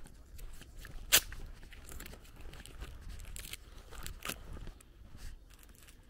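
Walking through grass with leafy branches brushing and crackling against the camera, giving several short rustling bursts. One sharp snap about a second in is the loudest sound.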